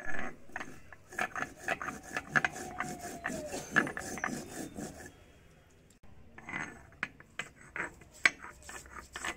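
Cumin seeds being ground on a Bengali sil and nora: a stone roller rocked and rubbed over a flat ridged grinding stone, making gritty scrapes and knocks about three strokes a second. The strokes stop for about a second past the middle, then start again.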